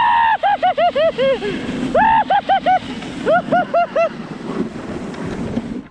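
People laughing hard in high-pitched bursts of quick 'ha-ha-ha' syllables, each burst falling in pitch. There are three bursts, then the laughter fades near the end.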